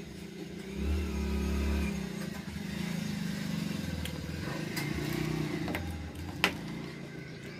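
A motor engine running steadily, louder from about one to two seconds in, with a few sharp clicks over it, the loudest about six and a half seconds in.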